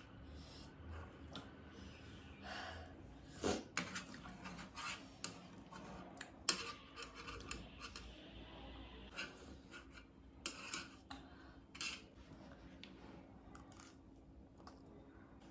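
A person eating instant noodles: irregular short chewing and slurping noises with light clicks of a utensil against the bowl.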